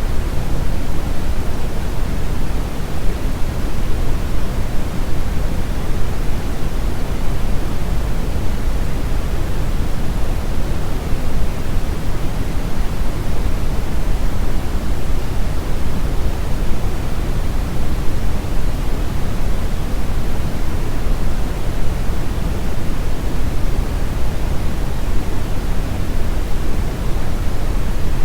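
Steady, loud electronic noise with no pitch or rhythm, heavier in the bass than the treble: pink noise.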